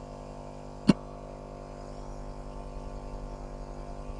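Maddox 12-volt portable air compressor running steadily as a hum while it inflates a car tire, with a single sharp knock about a second in.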